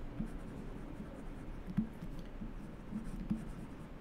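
Stylus scratching and tapping on a pen tablet in short, irregular strokes as words are handwritten.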